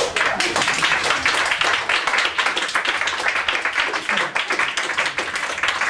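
Small audience applauding, many hands clapping in a dense, steady patter at the end of a song.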